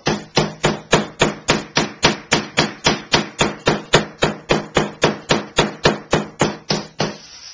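Meat pounder striking chicken breast through plastic wrap on a wooden cutting board, an even run of blows about four a second that stops just before the end, flattening the meat thin.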